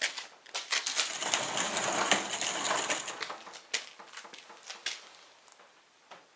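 Clattering and clicking of small hard objects being handled, busiest about one to three seconds in, then a few separate clicks.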